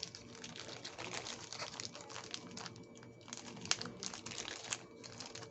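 Crinkling and rustling with many small clicks, and two sharper ticks in the second half.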